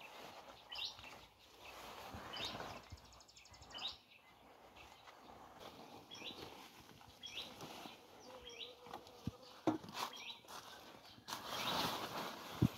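Pumpkin leaves and vines rustling as a hand picks the flowers, with a bird giving short chirps about every second or so; the loudest rustle comes near the end.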